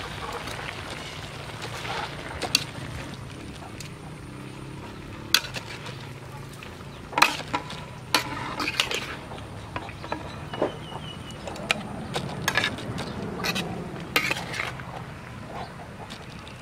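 Metal spatula scraping and clinking against a wok, at irregular moments, as eel and greens are stir-fried.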